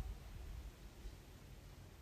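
Quiet background: faint hiss and low rumble, with a brief knock right at the start.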